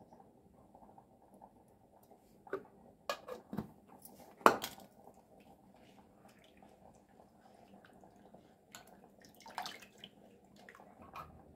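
Hands mixing a watery spice liquid in a bowl, with a few sharp clinks and knocks of the bowl and small vessels against one another and the floor, the loudest about four and a half seconds in.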